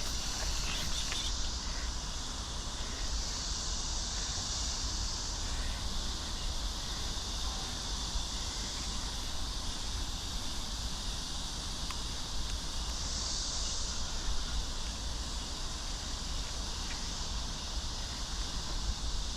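Insects chirring steadily in a high band, swelling louder twice, over a low steady rumble.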